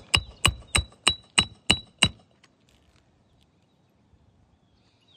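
Hammer striking a roofing nail in a rapid, even series of about eight ringing metal blows, roughly three a second, driving the nail down flush into the shingle. The blows stop about two seconds in.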